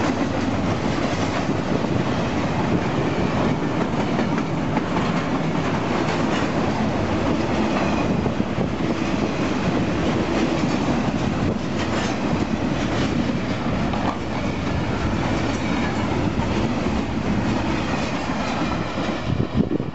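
Empty freight well cars rolling past at close range: a steady rumble of steel wheels on rail with occasional clacks over the rail joints. The rumble breaks up near the end as the last cars go by.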